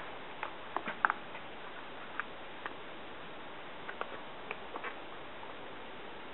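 Light, irregular clicks and taps of hands working the seat pad's straps and clips, over a steady background hiss.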